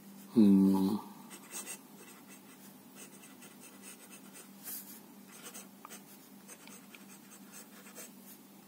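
Staedtler Initium Metallum fountain pen nib scratching faintly across paper as a word is written in cursive, in light, irregular strokes. A short voiced sound comes about half a second in.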